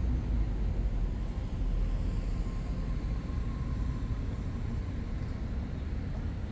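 Steady low rumble of city traffic, with no distinct single vehicle standing out.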